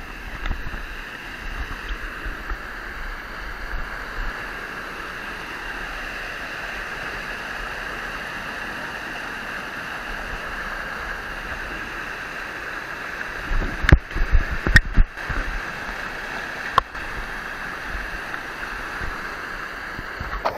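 Mountain river rapids: whitewater churning over boulders in a steady rush of noise. About two-thirds of the way through, a cluster of loud sharp knocks and thumps breaks over it, then one more shortly after.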